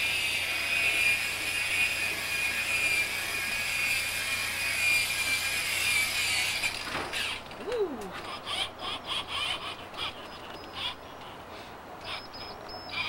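Electric car buffer running on a car roof with a steady high whine, which cuts off about seven seconds in. After that come scattered light clicks and knocks.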